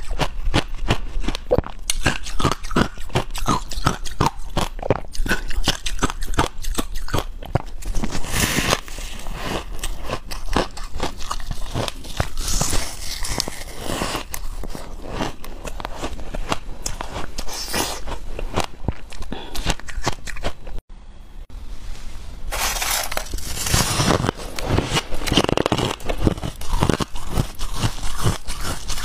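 Close-miked biting and chewing of shaved ice topped with passion fruit: a dense run of crisp crunches. About two-thirds of the way through the sound cuts out for a moment, then the crunching resumes.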